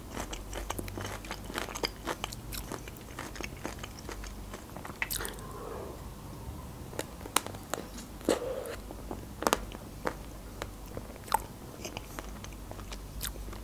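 Close-miked eating of a chocolate-coated Magnum ice cream bar: chewing, with irregular crisp cracks of the chocolate shell being bitten and wet mouth clicks.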